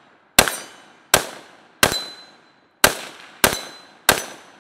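Galil ACE rifle in 5.56 with a VG6 Gamma muzzle brake, firing six semi-automatic shots at an uneven pace of about one shot every 0.6 to 1 second. Each shot trails off in a short echo.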